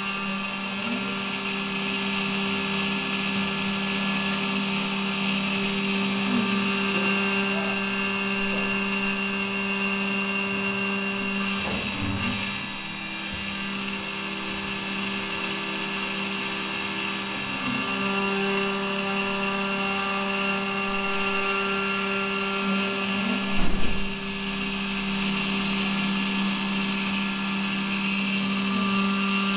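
Desktop CNC milling machine's spindle running with an end mill cutting aluminium under coolant: a steady whine over a high hiss, the tones shifting briefly about twelve seconds in, with a short sharp louder burst about twenty-four seconds in.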